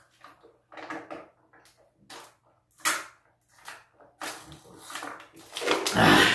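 A person gulping water from a plastic water bottle in a series of short swallows about a second apart, then a loud breath out about six seconds in as the bottle comes down.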